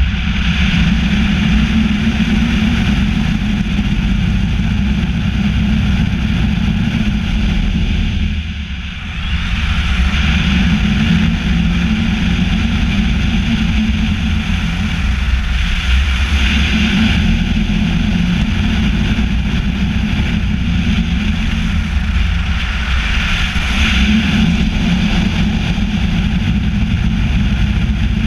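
Loud, steady rush of air over a camera mounted on a hang glider's wing in flight, swelling and easing every few seconds, with a brief lull about eight seconds in.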